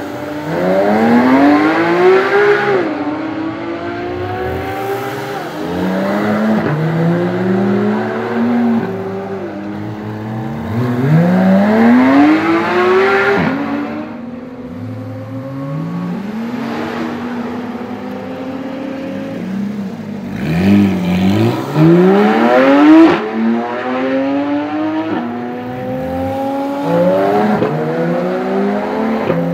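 A string of Porsche 991 GT3s accelerating hard one after another, each naturally aspirated flat-six revving up through the gears with quick upshifts. The pitch climbs, drops at each shift and climbs again. One car follows the next every few seconds, and the loudest pass comes a little past two-thirds of the way through.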